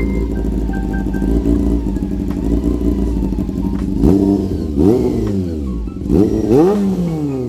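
Honda CB400 Super Four's inline-four engine idling through an SC Project CRT slip-on exhaust, then revved in four quick throttle blips, two pairs about 4 and 6 seconds in, each rising and dropping straight back to idle.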